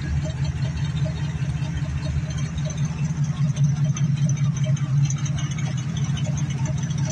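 The 1952 Chevrolet 3100 pickup's 350 small-block V8 idling steadily, with a low, even exhaust pulse.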